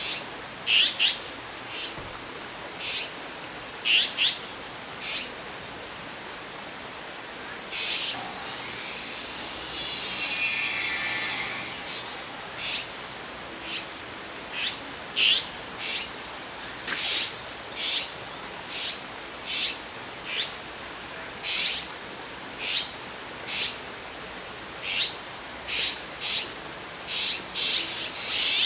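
Azure-winged magpie fledglings calling in short, sharp high notes about once a second, with one loud, harsh, drawn-out rasp about ten seconds in. Near the end the calls come thicker as the young beg to be fed.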